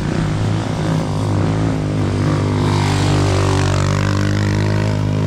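Motorcycle engine running steadily under load, with a rushing noise swelling in the middle.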